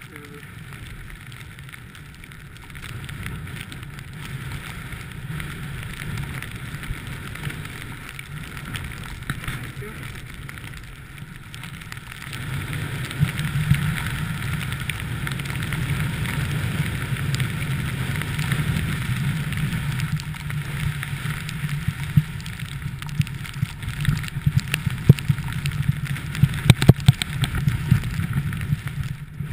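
Snowboard sliding and carving over fresh snow, with wind rushing over the action camera's microphone. The steady rush grows louder about halfway through, and sharp knocks come through near the end.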